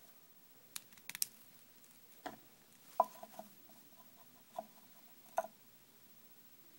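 Scattered light clicks and knocks of small hard objects being handled: three quick sharp clicks about a second in, a louder knock about three seconds in followed by a brief light rattle, then two more taps near the end.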